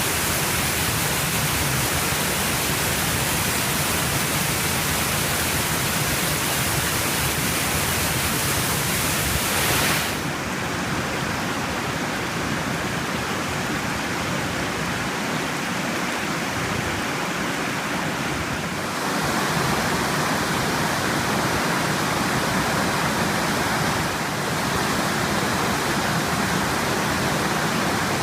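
Rushing waterfall: a steady, loud wash of falling water. Its tone changes abruptly three times, turning duller about a third of the way through, then brighter again a little past halfway, then shifting once more.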